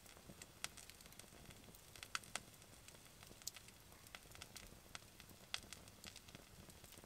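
Wood fire burning quietly in a fire pit, crackling with irregular small pops and snaps over a faint hiss.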